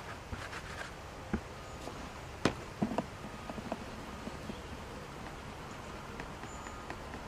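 A few sharp plastic knocks about two and a half to three seconds in as the bucket lid and groundbait riddle are handled, then a riddle of damp groundbait being worked over a plastic bucket, with light rustling and ticking as the mix goes through the mesh.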